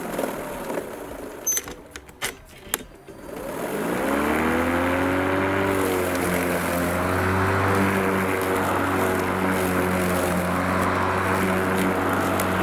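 Black & Decker 36V cordless lawn mower: a few clicks, then about four seconds in its electric motor spins up with a rising whine and runs steadily with the blade whooshing. The mower is working normally; the fault lay in its charger.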